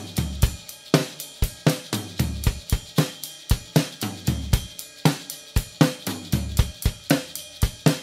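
Rock song opening on a drum kit beat: hi-hat and cymbals ticking over snare hits and bass drum, with short low bass bursts repeating under it.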